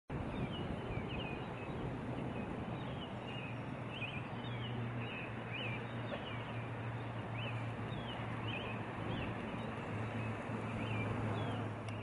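A small bird chirping repeatedly, short quick chirps about once or twice a second, over a steady rushing background with a low steady hum.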